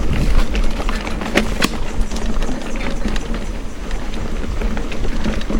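Wind rumbling on the microphone and tyre noise while riding over a rough dirt trail, with two sharp knocks about a second and a half in.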